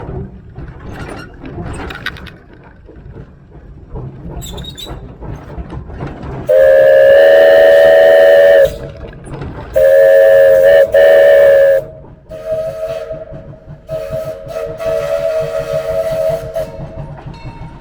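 Steam whistle on a small 1927 Vulcan 0-4-0T narrow-gauge tank locomotive, blown in two loud long blasts about six and ten seconds in, then a quieter held note, over the locomotive's running rumble.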